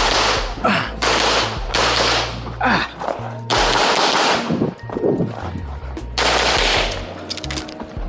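Pistol gunfire on a practical-shooting course of fire: shots in quick strings with short pauses between them, as the shooter moves from one shooting position to the next. Background music with a bass line runs underneath.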